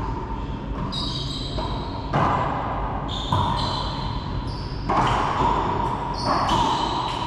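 Racquetball rally: the rubber ball is struck by racquets and smacks off the court walls about four times, each hit echoing in the enclosed court, with short high squeaks of court shoes on the hardwood floor between the hits.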